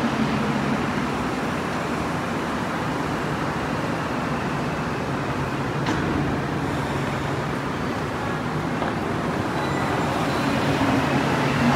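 Steady hum and rumble of a rubber-tyred Montreal metro station, with a train at the platform and escalators running; it grows slightly louder near the end.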